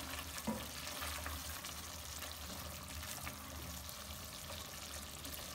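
Creamy paneer curry cooking in a pot, giving a faint steady sizzle while a silicone spatula stirs it, with a few soft scrapes and taps against the pot.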